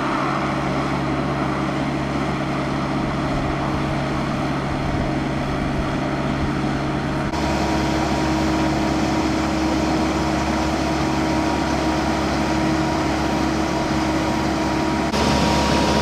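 Engine of an asphalt crack-repair machine running steadily with an even hum. The sound changes abruptly about seven seconds in and again near the end.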